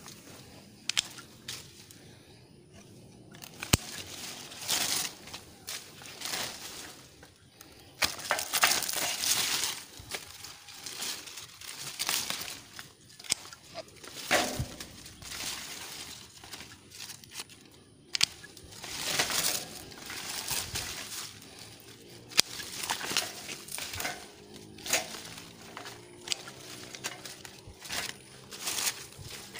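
Grapevine leaves and canes rustling and crumpling as they are handled and stripped during pruning, with a few sharp clicks of hand pruning shears cutting canes.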